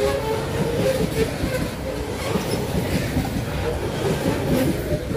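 Freight train of covered hopper wagons rolling past close by: a steady rumble of wheels on the rails, with intermittent squealing tones from the wheels.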